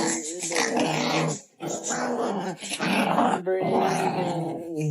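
A dog vocalising in long, drawn-out growling moans, several bouts in a row with short breaks between them, wavering in pitch like a dog 'talking back'.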